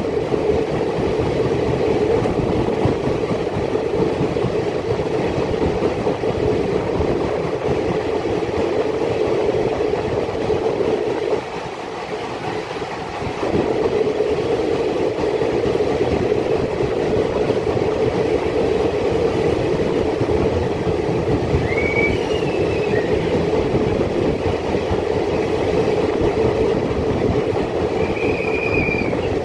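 Express train coach running at speed, heard at an open doorway: a steady rumble and rattle of wheels on the rails, briefly quieter about twelve seconds in. Two short high-pitched wheel squeals come near the end.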